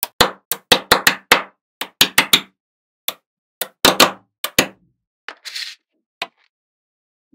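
Small magnetic balls clicking and snapping together as they are set in place: a quick, irregular run of sharp clicks and knocks that thins out after about five seconds, with a brief hiss in between.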